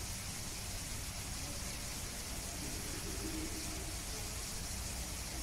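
Steady background hiss of enclosure ambience, with no distinct chewing or crunching. A faint pitched sound, likely a distant voice, comes briefly near the middle.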